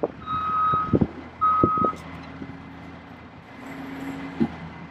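Backup alarm on a reversing heavy vehicle beeping twice, each beep a steady high tone about half a second long. A diesel engine runs low underneath, carrying on after the beeps stop.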